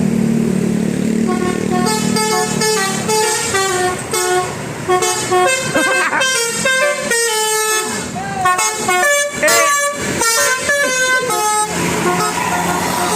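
Bus telolet horn (a Basuri multi-tone musical air horn) playing a quick tune of short stepped notes, starting a second or two in and stopping near the end.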